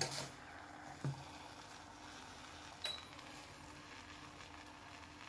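Beaten egg setting in oil in a non-stick frying pan: a faint, even sizzle with a steady low hum underneath, and a few light clicks.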